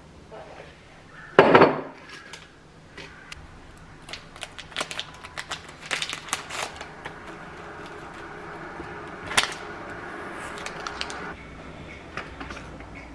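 Tea being made at a kitchen counter: a loud knock about a second and a half in, as of a ceramic mug set down on the stone top, then a run of light clicks and rustles as the tea bag is handled. A steady hiss runs through the middle and stops abruptly about eleven seconds in.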